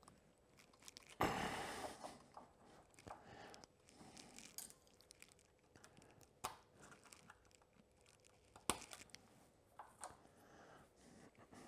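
Small metal clicks and scraping of a pick and snap ring being worked into the groove of a motorcycle brake master cylinder bore. A louder scraping rustle comes about a second in, then a few sharp clicks later on.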